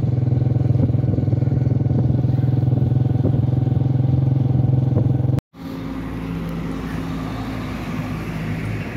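A vehicle engine running steadily while under way, heard from on board. It stops abruptly about halfway through, and a quieter, steady engine hum follows.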